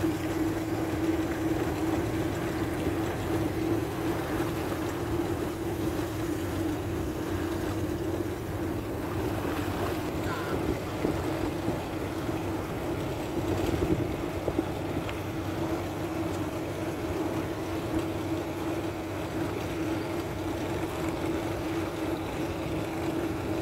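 A boat's engine running steadily at an even pitch, a constant drone.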